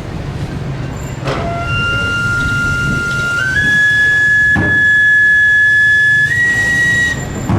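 Chirimía (wooden shawm) playing long held notes that step up in pitch twice, with two sharp drum strokes.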